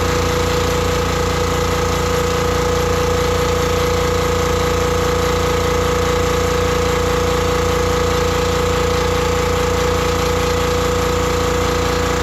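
Campbell Hausfeld 20-gallon, 2 HP air compressor running steadily, its pump charging the tank back up after air was let out.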